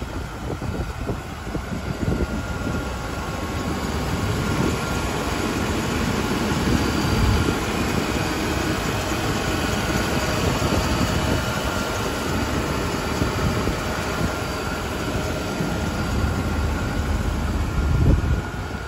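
GMC 3500 pickup's engine idling steadily with the hood open, a low rumble with a faint steady whine above it.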